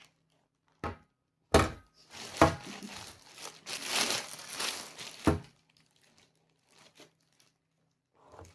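Plastic packaging crinkling and rustling as a parcel is handled and opened, with a few sharp knocks, the last about five seconds in.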